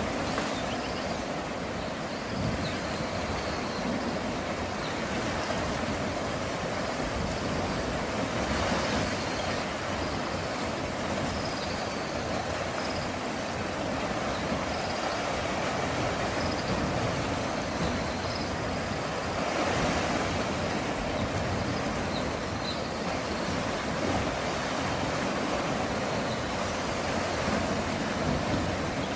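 Sea waves washing against a rocky shore in a steady rush, surging louder about nine seconds in and again about twenty seconds in.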